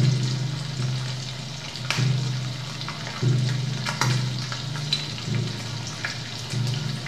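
Freshly deep-fried, batter-crusted saxophone sizzling and crackling as hot oil cooks off it, amplified through microphones. A low drone cuts in and out every second or so underneath.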